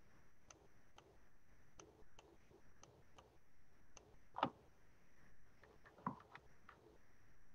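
Faint, scattered clicks at a computer, from mouse and keys being worked, with a sharper click about four and a half seconds in and a few more around six seconds.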